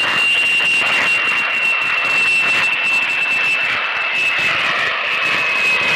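Jet aircraft engine sound: a steady rushing noise with a high whine that falls slightly in pitch.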